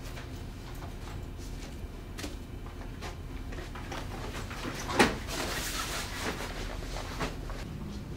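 Door closing with one sharp knock about five seconds in, followed by about a second of hiss, over a low steady room hum and faint light footsteps.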